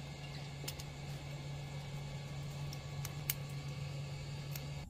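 A few light clicks of a thin metal tool working at the internals of an opened smartphone, over a steady low hum.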